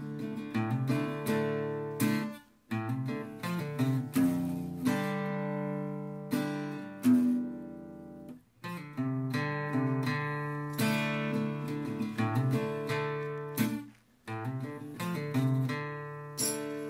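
Acoustic guitar music: plucked and strummed chords, each ringing out and fading, with three short pauses between phrases.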